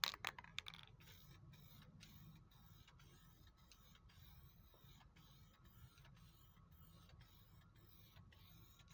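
An aerosol spray-paint can's mixing ball rattling a few times at the start, then the faint, steady hiss of black vinyl and fabric spray paint being sprayed in light coats.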